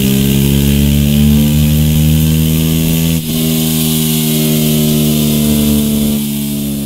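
KTM 390 Duke's single-cylinder engine running through a Mivv X-M1 slip-on silencer, the revs climbing slowly and steadily with a brief dip about three seconds in.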